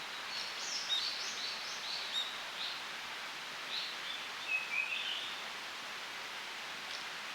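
A string of short, high chirping calls, about a dozen notes in the first five seconds, over a steady background hiss.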